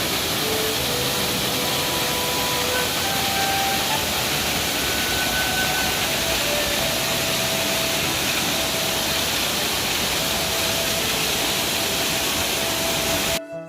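Waterfall running full with rainy-season water: a steady, loud rush of falling water, with faint music notes held beneath it. The water sound cuts off suddenly near the end.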